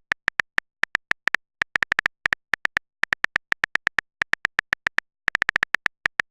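Phone keyboard typing clicks, the sound effect of a text message being typed: quick runs of short, identical ticks broken by brief pauses.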